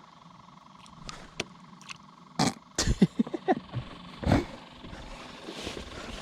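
A string of sharp knocks and thumps, several in quick succession, the loudest about two and a half and four seconds in, over a faint steady motor hum, as of gear being handled aboard a fishing boat.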